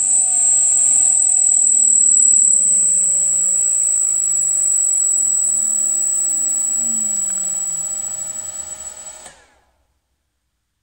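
Electric motor fed by a Siemens Sinamics G110 frequency inverter winding down: a steady high-pitched whine over several hums that fall steadily in pitch as the drive ramps the motor's speed down. Everything cuts off suddenly about nine seconds in.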